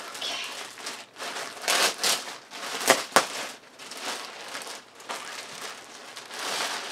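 Clear plastic packaging bag crinkling and rustling as it is handled and opened, with two sharp snaps about three seconds in.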